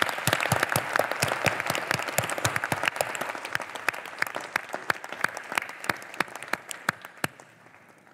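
Applause from a large audience, gradually thinning out and dying away near the end.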